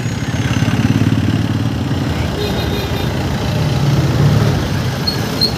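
A motor vehicle's engine running under way with a steady, rapid low pulse, amid city street traffic, heard from a moving vehicle.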